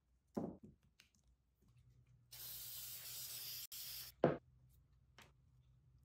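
Aerosol spray adhesive hissing out of the can for nearly two seconds, with a momentary break partway through. A soft knock comes about half a second in, and a louder knock right after the spraying stops.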